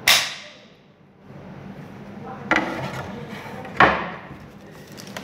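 Three sharp plastic clacks from an HP V194 monitor stand: its neck is snapped into the base and the stand is set down on a desk.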